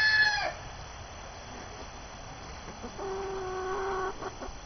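Rooster crowing: a loud crow ends in the first half second. About three seconds in comes a lower, steady call lasting about a second.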